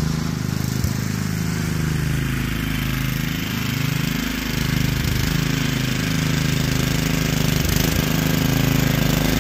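Bolens ST110 garden tractor's engine running as the tractor is driven, its pitch dipping and rising several times with the load and throttle, with a few brief knocks.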